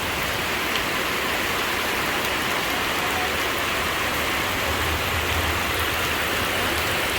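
Heavy rain falling steadily after a windstorm, with no wind now, just the rain.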